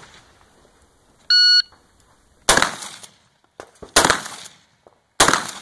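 A shot timer gives one short beep, then a shotgun fires three times, the shots about a second and a half apart, each trailing off in a brief echo.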